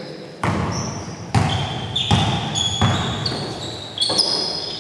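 Basketball dribbled on a hardwood gym floor, about five bounces that ring on in the hall, with short high squeaks of sneakers on the court between them.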